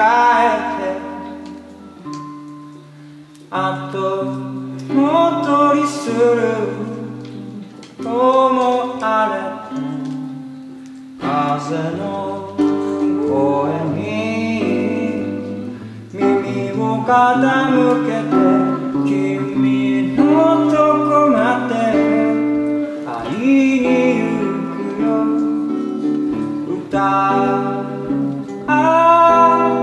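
A man singing a slow melody in phrases over his own acoustic guitar, which holds sustained chords and bass notes beneath the voice.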